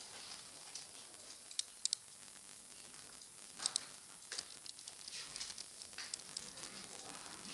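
Computer mouse and keyboard clicks, a few as quick double clicks, over a steady background hiss.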